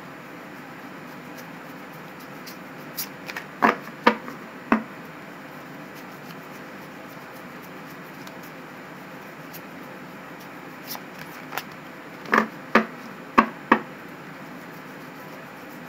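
A deck of tarot cards being shuffled by hand, with a cluster of sharp card clicks about three to five seconds in and another near the end.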